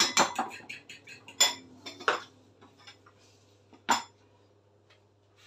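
A metal fork beating egg in a ceramic bowl: a quick run of clinks, about six a second, for the first second or so, then three separate knocks of the fork on the bowl, the last about four seconds in.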